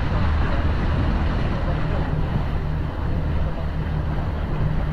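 A swamp-tour boat's motor running steadily, a constant low drone, under the rush of wind and water.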